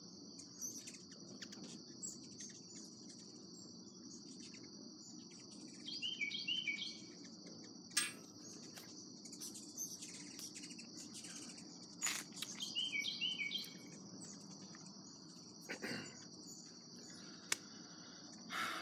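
Steady high-pitched insect trilling, with a songbird singing a short phrase of falling notes three times, about every six or seven seconds. A low steady hum from an air conditioner runs underneath, and there are a few sharp clicks, loudest about twelve seconds in.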